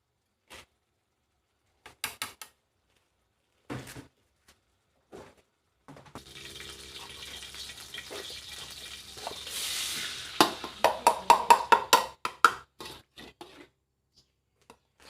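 Kitchen sounds: a few light clinks of utensils, then water running from a tap for about four seconds, growing louder just before it stops. A quick run of clattering knocks of pots and dishes follows.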